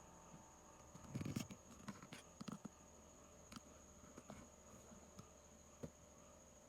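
Faint scratching and light clicks from small parts being handled during a phone repair, over a steady faint electrical hum. The scratching clusters about a second in, followed by a few scattered ticks.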